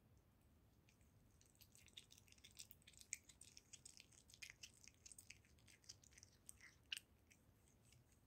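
A kitten eating liverwurst, a run of quick wet clicks and smacks from its chewing and licking. It starts about a second and a half in and stops around seven seconds.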